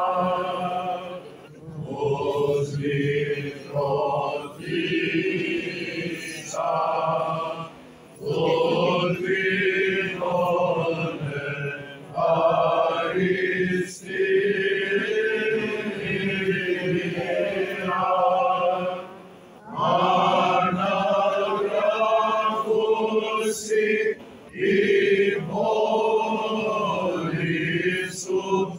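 Greek Orthodox Byzantine chant: men's voices singing together in long phrases with brief pauses between them.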